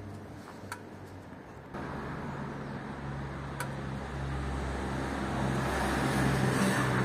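Street traffic: a motor vehicle's engine hums steadily, with the sound growing louder toward the end as a vehicle comes closer, and a couple of faint clicks along the way.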